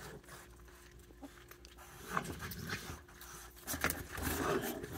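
Raccoon growling over food, in short rough bouts about two seconds in and louder near the end.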